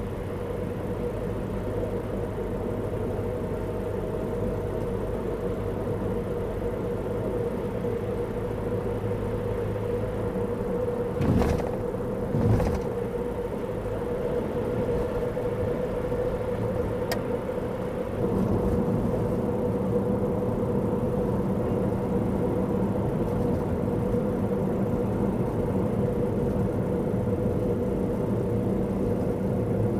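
Car driving, heard from inside the cabin: a steady drone of engine and road noise. Two brief thumps come a little before halfway, and the drone gets louder about two-thirds of the way through.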